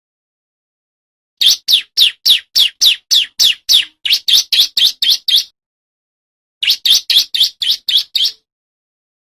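Male bar-winged prinia (ciblek) singing: rapid, evenly spaced high notes, each sliding downward, about four a second. A burst of about four seconds comes first, then after a short pause a shorter, quicker burst.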